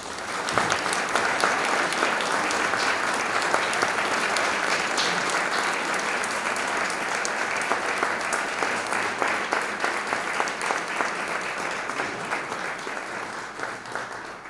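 Audience applauding, breaking out suddenly and thinning gradually toward the end.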